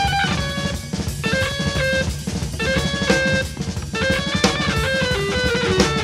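Rock music: a drum kit with bass drum beats under a melody of held notes, which step downward through the second half.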